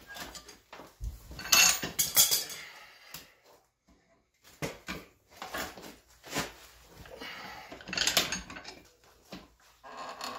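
Irregular metal clanks and scrapes of smithing tools on a steel bar as the twisted piece of 5160 coil spring is worked to untwist it, with the loudest clatter about two seconds in and again near eight seconds.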